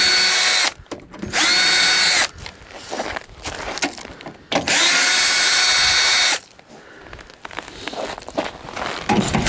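Bosch GSR 14.4-2 cordless drill/driver running in short bursts to take out the screws holding a cover: four steady whining runs of one to two seconds each, with small clicks and handling noise between them.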